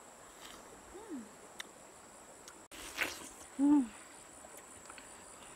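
A woman eating watermelon, chewing and giving short falling "mmm" hums of enjoyment, one about a second in and a louder one near the middle. A wet bite or slurp comes just before the louder hum.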